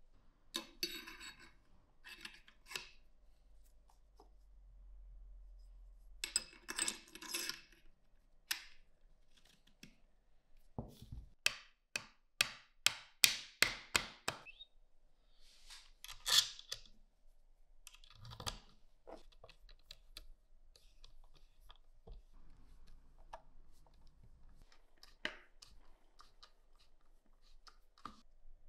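Parts of a Carcano rifle being reassembled by hand: the wooden stock and metal fittings click and rub against each other. In the middle comes a quick run of about a dozen sharp ticks, about three a second, the loudest sounds here. Small screwdriver clicks follow near the end.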